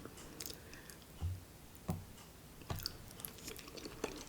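Faint chewing with scattered small mouth clicks while eating noodles and rice cakes close to the microphone, with a few soft low thumps.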